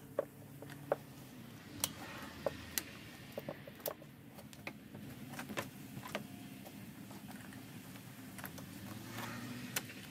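Irregular small clicks and knocks of hands reconnecting rubber hoses and plastic connectors in a car's engine bay, with a cluster of sharper clicks in the first half.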